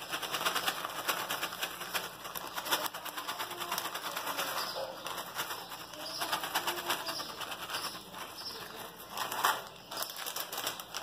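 Crisp shoestring potato sticks (batata palha) being poured and scattered over a salad, a dense patter of light clicks and crackles.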